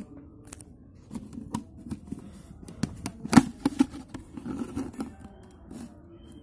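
Thin plastic water bottle handled in the fingers: irregular crinkles, clicks and taps of the plastic, loudest about three and a half seconds in.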